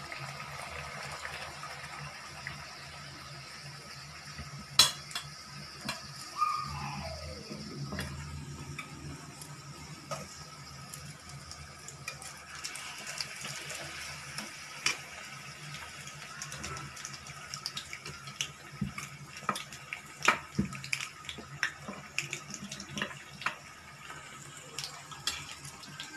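A puri deep-frying in hot oil in a kadhai, with a steady sizzle. Sharp metal clinks and knocks come now and then as a wire strainer presses the puri and touches the pan.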